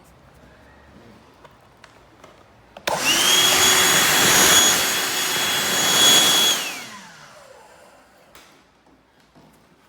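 Black+Decker Dustbuster cordless handheld vacuum switched on about three seconds in. It runs loudly with a steady high whine for about three and a half seconds, then is switched off, its motor whining down in pitch as it stops.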